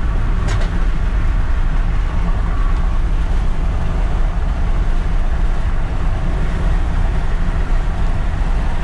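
Inside the cab of a 2001 Ford F350 with a 6.8-litre V10 gas engine cruising at highway speed: a steady low rumble of engine, tyres and wind. There is a brief click about half a second in.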